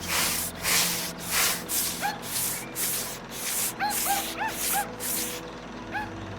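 Rhythmic rasping strokes of something being rubbed back and forth on a hard surface, like sanding or scrubbing, about two strokes a second, stopping shortly before the end. A few short, arching chirps sound in the middle.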